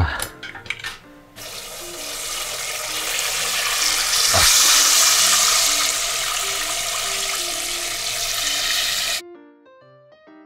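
Chicken karaage sizzling in a pot of hot oil during its second frying. The sizzle starts abruptly, swells over a few seconds, then cuts off suddenly near the end.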